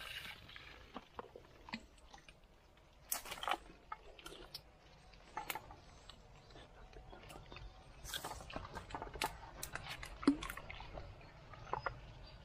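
Dry grass, leaves and twigs rustling and crackling as someone pushes through undergrowth, in scattered crackles that come in bunches around three seconds and eight to ten seconds in.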